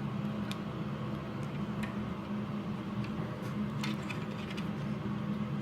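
A few light clicks and taps of plastic parts and wire connectors being handled while a vacuum cleaner's switch is refitted, over a steady low background hum.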